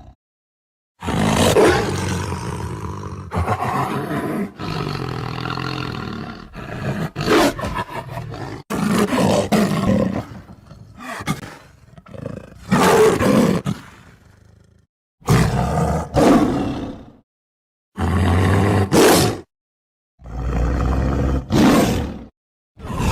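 Tiger roars and growls: several separate sound-effect clips played one after another, each cut off abruptly by a short gap of dead silence before the next.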